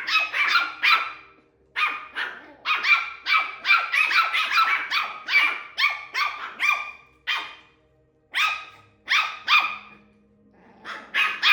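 West Highland White Terrier puppy barking in quick runs of short, high-pitched barks, with brief pauses between the runs.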